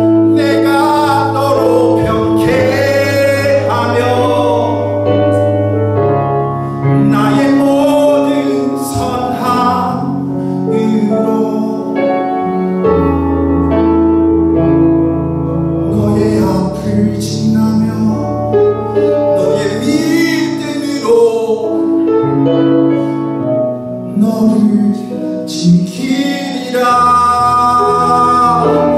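A man singing a worship song into a microphone, accompanied by sustained keyboard chords whose bass note changes every few seconds.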